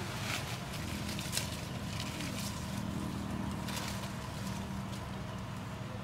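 Leaves and undergrowth rustling, with a few short crackles, as plants are pushed aside and handled, over a steady low hum.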